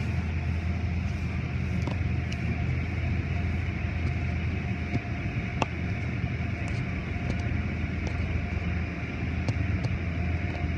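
Automatic car wash heard from inside the car's cabin: water spraying against the windows over a steady low drone, with scattered light ticks.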